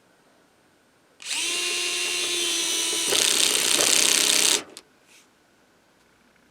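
A small cordless electric screwdriver starts about a second in and runs at a steady pitch. It turns louder and harsher for about a second and a half, then stops. This is typical of driving a screw into a plastic test sheet.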